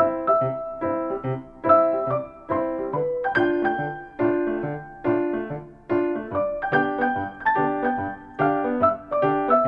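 Piano music: chords and notes struck in a steady rhythm, each ringing and fading before the next.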